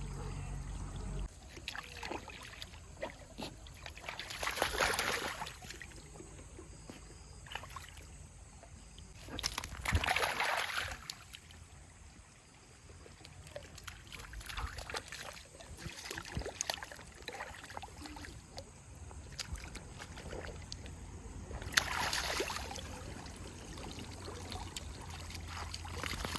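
Shallow mountain stream water trickling and sloshing, with three louder splashing surges about four, ten and twenty-two seconds in.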